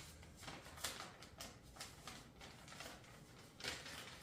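A sheet of paper being folded by hand, with faint irregular rustling and crinkling as the corners are turned in and creased.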